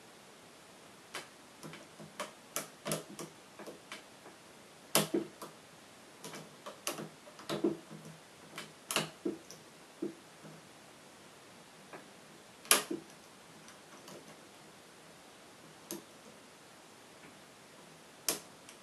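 Irregular metallic clicks and ticks from a hook pick working the pins of a VITA 5-pin euro cylinder lock, much of it the pick slipping off the pins and catching on the keyway. The clicks come at an uneven pace, with a few louder snaps among them.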